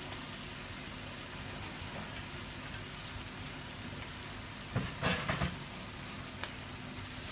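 Butter sizzling with a steady hiss in a large stainless pot under sliced mushrooms and chopped onion as they begin to sauté. A few brief knocks and scrapes about five seconds in as the cutting board is tipped against the pot.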